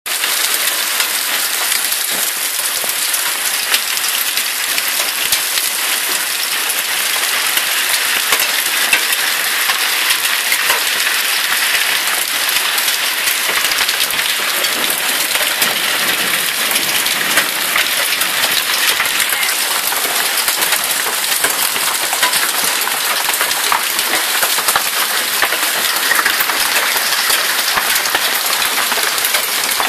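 Heavy rain mixed with hail pouring down: a loud, steady hiss dotted all through with many small sharp ticks of hailstones striking.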